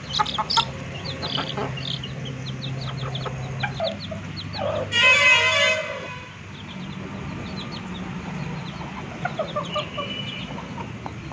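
Chicks peeping in many short, high chirps, with one loud, harsh call of about a second from a grown chicken about five seconds in.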